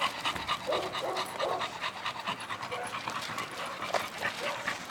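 A dog panting quickly and evenly.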